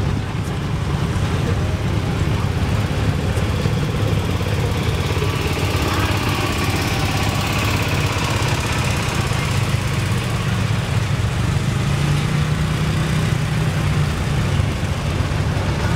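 A vehicle engine running steadily at low speed, with an even low drone.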